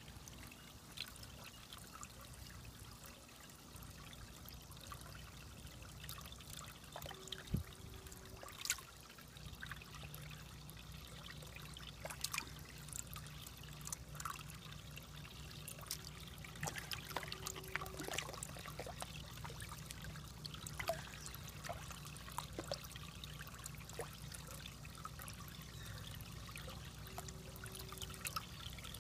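Faint water trickling, with a steady low hum and scattered light ticks.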